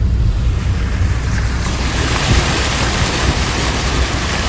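Strong wind buffeting the microphone with a deep rumble, joined about a second and a half in by a louder steady hiss of wind.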